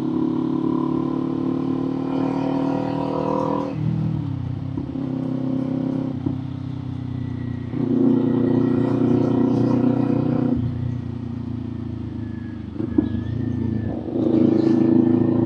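Kawasaki Z400 parallel-twin engine and exhaust running under way at fairly steady revs. The throttle eases off about four seconds in, picks up again around eight seconds, and opens once more near the end.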